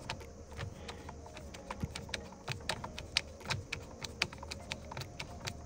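A screwdriver with a T20 Torx bit backing a screw out of a steering wheel's plastic trim, making a run of light, irregular clicks and ticks.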